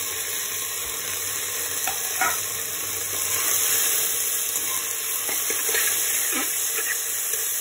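Onions, potato pieces and spice masala sizzling in hot oil in a metal pot, stirred with a spatula that scrapes the pot now and then. This is the masala being fried after the onions have browned.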